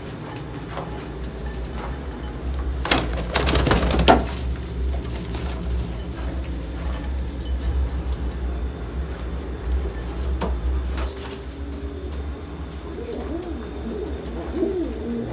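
Domestic pigeons cooing over the steady drone of a fan. A short rustling clatter comes about three seconds in, and the cooing grows busier near the end.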